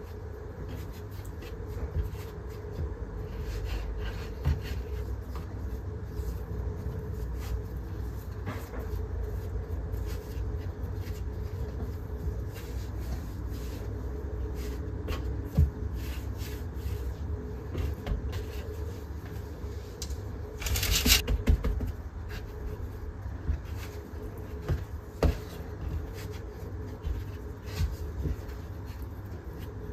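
Soft handling sounds as ciabatta dough is folded and shaped by hand: light taps, rubbing and scraping, with a brief louder noise about 21 seconds in. A steady low hum runs underneath.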